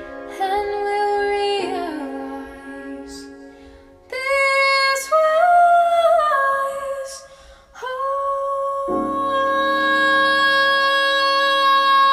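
A woman's solo voice singing long held notes, accompanied by piano and cello; the last note is held steady through the end.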